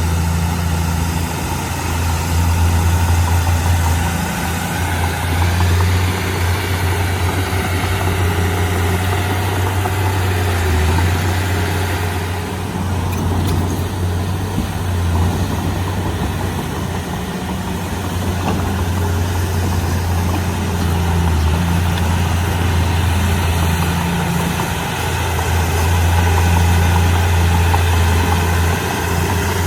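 Komatsu D31P bulldozer's diesel engine running steadily as the machine works, its loudness swelling and easing every few seconds with the load.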